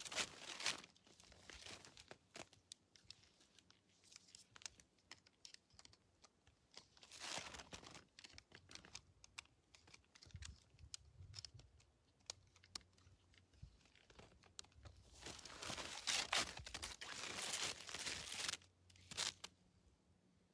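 Faint crunching and rustling close to the microphone, in scattered bursts: one about 7 seconds in and a longer stretch from about 15 to 19 seconds, with small clicks in between.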